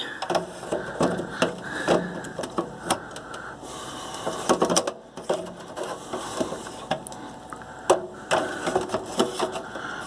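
Blue plastic hard-drive caddy of a Dell Optiplex GX620 knocking, clicking and scraping against the computer's metal drive bay as it is worked into line, in irregular small knocks, the loudest about eight seconds in.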